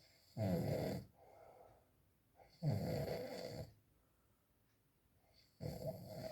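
A person snoring: three long snores about two and a half seconds apart, each lasting about a second, with quieter breathing between them.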